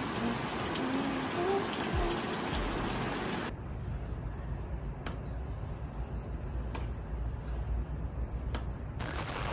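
Rain falling on a wooden balcony deck, a steady hiss. About three and a half seconds in, it cuts to a quieter patter with a few separate drips.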